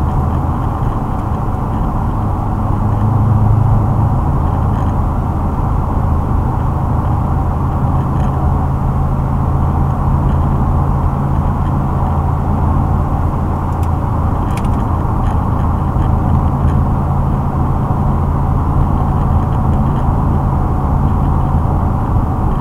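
Exhaust of a 2006 Ford Mustang GT's 4.6-litre V8 through a Pypes off-road X-pipe (no catalytic converters) and Magnaflow axle-back mufflers, a steady low drone at an even engine speed as heard inside the car's cabin. It grows a little louder for a moment about three seconds in.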